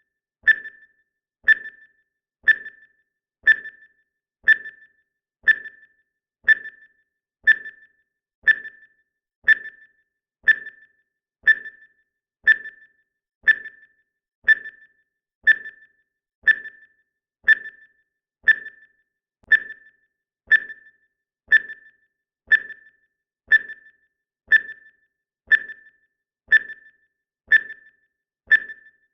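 Countdown timer sound effect: a short, high electronic tick that rings briefly, once every second, marking off the seconds.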